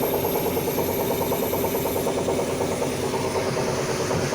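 Hydraulic system of a heavy machine running under the engine with a rapid, steady "tag, tag, tag" knocking and vibration while the swing is operated: an abnormal sound that the operator traces to the hydraulic pump rather than the relief valve.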